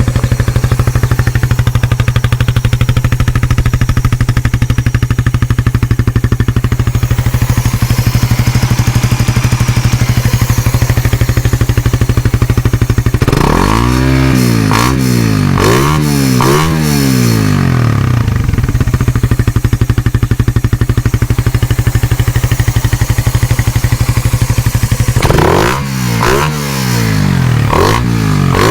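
Suzuki Raider 150 Fi single-cylinder motorcycle engine breathing through the carbureted Raider R150's stock muffler, idling steadily, then revved in a quick series of throttle blips about halfway through, settling back to idle, and blipped again near the end.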